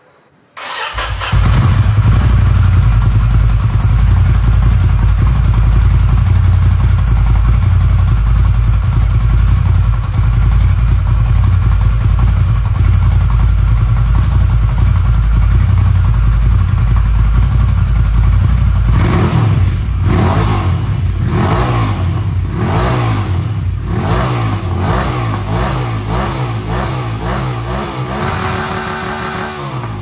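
Ducati Scrambler's air-cooled L-twin engine, breathing through an Akrapovic stainless exhaust with twin conical mufflers, starts up and runs steadily for a long stretch. About two-thirds of the way in it is blipped repeatedly on the throttle, revving up and dropping back roughly once a second, then settles again near the end.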